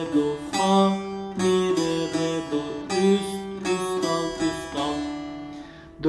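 Bağlama (long-necked Turkish saz) picked with a plectrum, playing a slow phrase of single notes, the last one ringing out and fading near the end.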